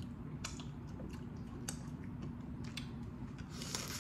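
Boiled crawfish being peeled and eaten close to the microphone: scattered sharp clicks and cracks of the shells, then a longer hissing slurp just before the end as a crawfish is sucked.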